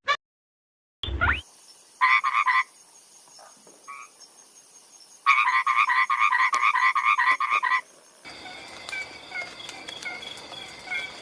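A frog calling: a short pulsed croak about two seconds in, then a longer trill of rapid, evenly spaced pulses lasting about two and a half seconds. Near the end the background changes to a faint steady high-pitched tone.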